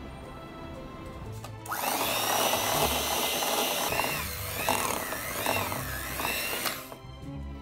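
Electric hand mixer starts about two seconds in and runs for about five seconds, its motor whine wavering in pitch as the beaters work through thick cookie dough, then stops. Soft background music underneath.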